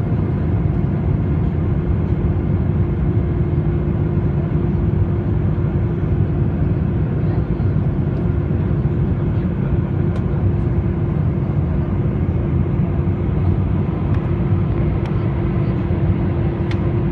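Steady drone of an Airbus A320-214 in flight, its CFM56 engines and airflow making a constant low noise with a steady hum over it, as heard inside the cabin.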